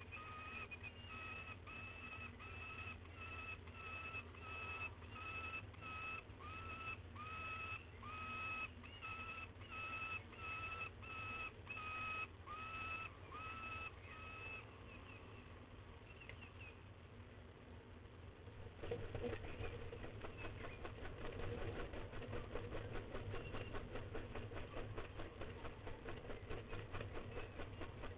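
Peregrine falcon calling over and over, a flat whining note about twice a second, stopping about halfway through. From about two-thirds in, a dense rustling noise takes over.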